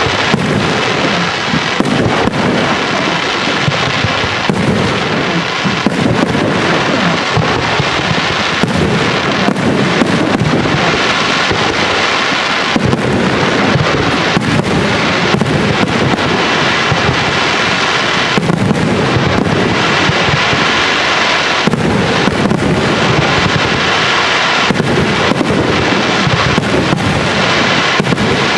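Dense barrage of aerial firework shells bursting, with many loud bangs in quick succession blending into a continuous rumble.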